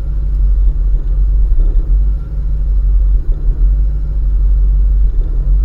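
Steady low rumble of a Dodge Daytona's engine, heard from inside the car's cabin.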